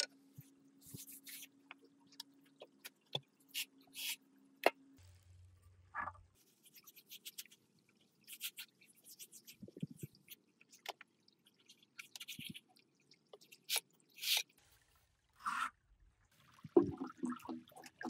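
Scattered light scrapes, clicks and taps. A faint steady hum runs for about the first five seconds, then a brief low hum.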